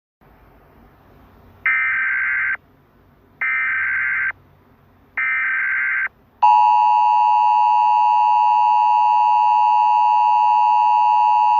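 Emergency Alert System header: three short bursts of warbling SAME data tones, each just under a second long, then about six seconds in the loud, steady two-tone EAS attention signal begins and holds.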